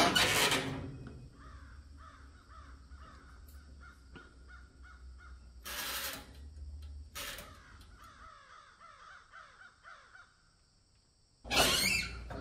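Glass door of a countertop electric oven shutting with a clunk, then a click about six seconds in and another about a second later as its control knobs are turned. Faint bird calls repeat in the background until about ten seconds in, and a louder noise comes near the end.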